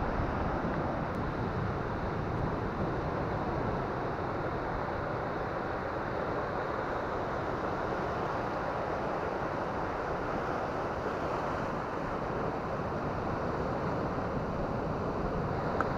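Surf washing over shoreline rocks in a steady rush, with wind buffeting the microphone.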